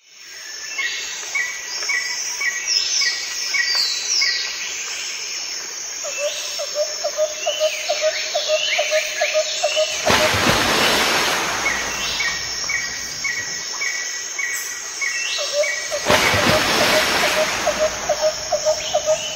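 Birds chirping and calling: runs of quick short chirps and falling calls, with a fast series of lower pulsed notes. Twice, a swell of rushing noise rises for about two seconds.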